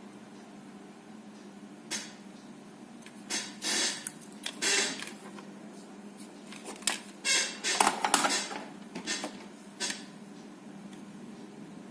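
Small metal tools and parts clicking, clinking and scraping on a workbench in scattered bursts, busiest in the middle, over a faint steady hum.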